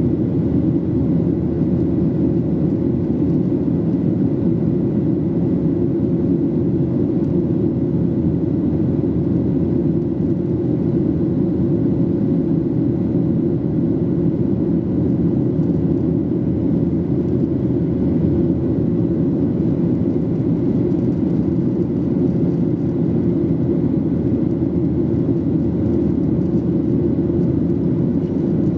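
Cabin noise of a Boeing 737-800 with its CFM56-7B engines at steady power: a loud, even low rumble with a faint constant whine.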